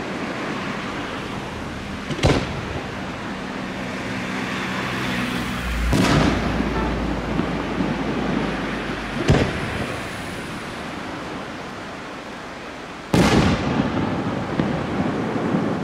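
Aerial firework shells bursting: four sharp bangs a few seconds apart, each followed by a rolling echo, over a steady low rumble. The last bang, near the end, is the loudest.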